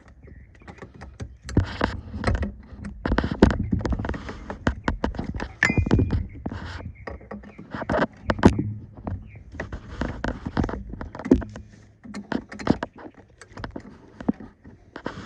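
A wrench clinking, clicking and scraping against a worn air-line fitting as the fitting is worked back and forth to loosen it. The metal knocks come irregularly, several a second at times.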